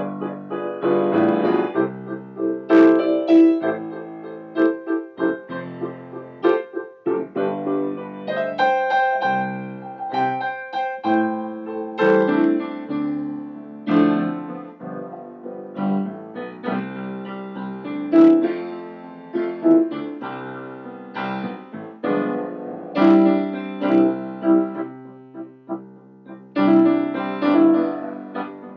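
Grand piano played solo: a continuous passage of chords and quick notes, swelling and easing in loudness.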